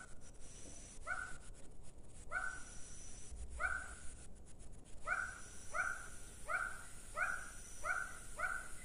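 An animal calling with a short repeated call, about ten times, the calls coming faster after the first few.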